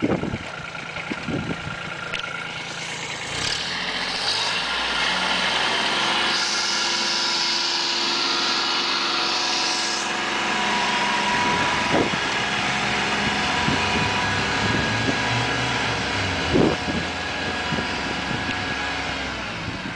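Compact tractor engines running steadily under load while ploughing soil, with a couple of sharp knocks in the second half.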